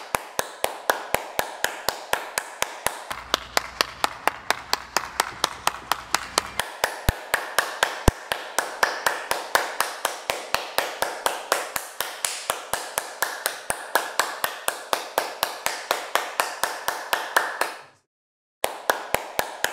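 One person clapping her hands in a steady, even rhythm of about four to five claps a second, kept going on and on like dutiful polite applause. The clapping cuts out for a moment near the end, then resumes for a few claps.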